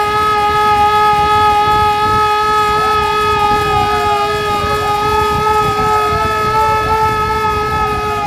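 Civil-defence warning siren being test-sounded, holding a steady high tone. A fainter second tone slides down in pitch and jumps back up about every two seconds.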